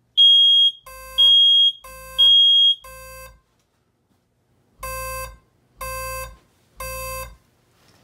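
A smoke alarm sounds three short, high beeps in the temporal-three pattern. In reply, a Safe Awake bed-shaker base unit starts its lower, buzzy alarm tone, pulsing about once a second in groups of three with a pause between. A low rumble sits under each pulse, from the bed shaker vibrating.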